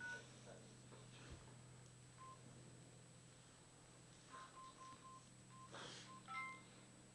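Faint short electronic beeps over a low steady hum: a single beep about two seconds in, a run of about six beeps at one pitch in the second half, then a quick few at different pitches near the end.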